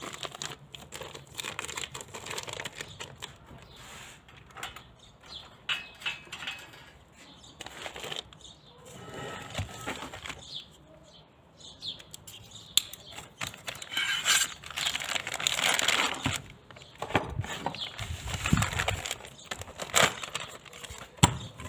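Handling noise from fitting a circular saw blade by hand: scattered clicks, knocks and rustling as the blade, flange and bolt are moved against the saw.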